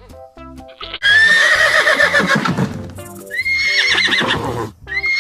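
A horse whinnying twice: loud, wavering neighs that fall in pitch, the first starting about a second in and the second just after three seconds. Light plinking background music plays before the first neigh.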